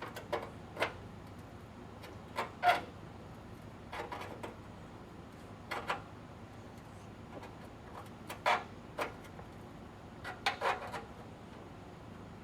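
Irregular knocks and metallic clicks of a homemade hand bending tool working the sheet-steel lip of a 1928 Ford Model A inner trunk lid panel, about a dozen strikes spaced unevenly, the loudest about two and a half seconds in.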